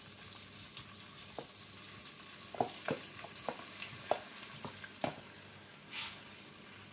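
Marinated tofu frying in hot oil in a frying pan: a steady sizzle with scattered sharp crackles and pops.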